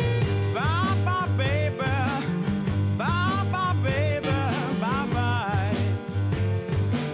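1970s rock song with a steady pulsing bass and drums. A lead line slides up into its notes twice, about half a second and three seconds in.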